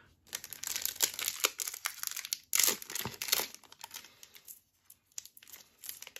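A Yu-Gi-Oh booster pack's wrapper being torn open and crinkled by hand, an irregular run of crackling and ripping that is loudest about halfway through and then dies down to a few rustles.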